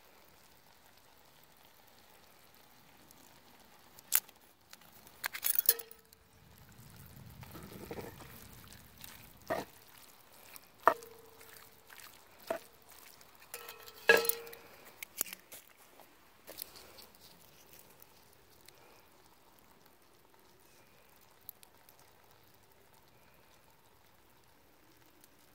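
Utensils clinking and knocking against a cast iron Dutch oven while ground beef is stirred in it with a wooden spoon; several of the knocks leave a short ring from the pot. The clatter falls away about two-thirds of the way in.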